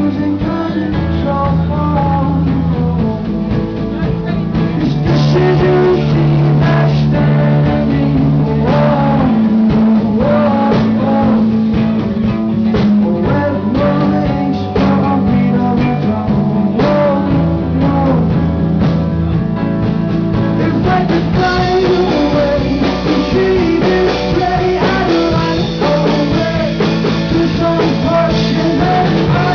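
Rock or blues music with guitar and singing, its low notes changing every few seconds.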